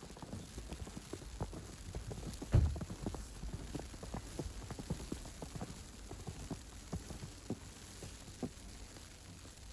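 Footsteps crunching in snow at a steady walking pace, with one louder low thump about two and a half seconds in.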